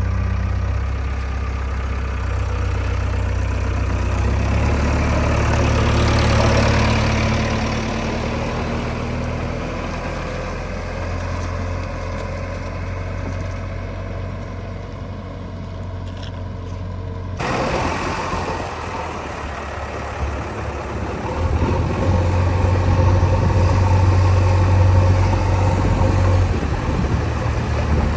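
Diesel engines of heavy machinery running steadily at work. The sound changes abruptly about two-thirds of the way through. Near the end the engine note grows louder for several seconds, then eases again.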